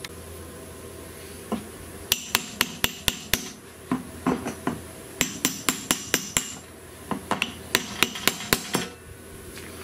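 Ball-peen hammer tapping a metal drift against the fuel pump lock ring to drive the ring round and loosen it. The quick metallic taps, about four a second, come in several short runs with pauses between.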